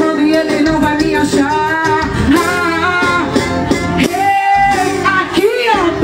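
Live band music with a woman singing into a microphone, the sung melody gliding up and down over a steady accompaniment.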